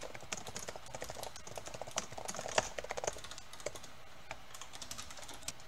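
Typing on a computer keyboard: a quick run of key clicks for about three seconds, then a few scattered keystrokes.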